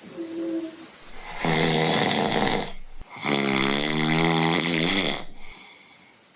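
A man's long, raspy laugh that sounds like snoring, in two drawn-out breaths, the second falling in pitch.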